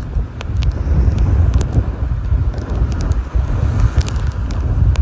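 Hurricane-force wind buffeting the microphone in a heavy, gusting low rumble, over the hiss of storm surf breaking against a seawall. Sharp ticks of rain drops strike the microphone throughout, thickest about four seconds in as a wave throws spray over the wall.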